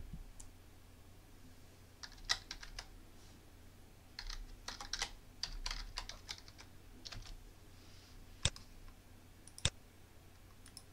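Typing on a computer keyboard in quick bursts, followed by two single sharp clicks about a second apart.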